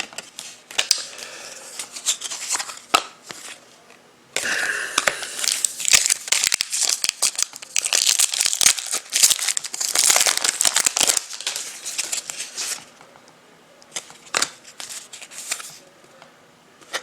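A trading-card pack wrapper being torn open and crinkled, with a dense run of crackling and tearing from about four seconds in to about thirteen seconds, and scattered clicks of cards being handled before and after.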